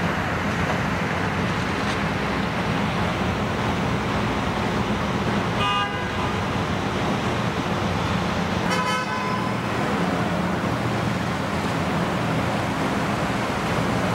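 Steady factory-floor din with a low hum, broken twice by short horn toots about three seconds apart.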